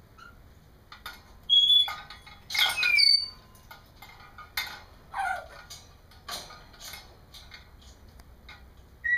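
African grey parrot babbling: a string of short whistles, clicks and squeaky calls, with the loudest a couple of seconds in and a falling squeal about five seconds in.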